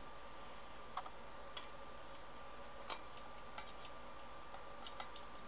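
Faint, sparse clicks and light taps of small metal parts as a spark plug is fitted back onto a torpedo heater's sheet-metal radiation shield, a few single clicks and then a small cluster near the end, over a steady faint hum.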